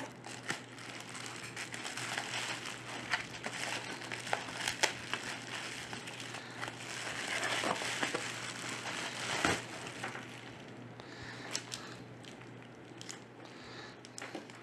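Pink anti-static bubble-wrap bag crinkling and crackling as it is unwrapped and handled, with scattered sharp clicks, busiest about halfway through and quieter near the end.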